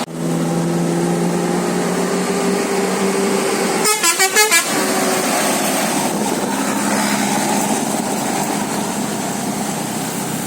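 Bus air horns sounding in traffic: a held horn note for the first few seconds, then a quick run of about five short horn blasts around four seconds in, over steady road noise.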